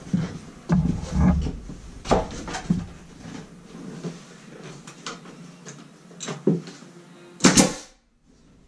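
Knocks and handling noise as a pneumatic nail gun on its air hose is picked up and set against a wooden trim rail. Near the end comes a loud, sharp burst: the nailer firing into the rail.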